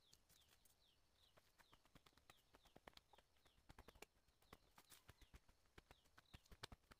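Faint, irregular knocks and scrapes of a hand tool digging into forest soil and roots, with a high chirp falling in pitch repeating about twice a second.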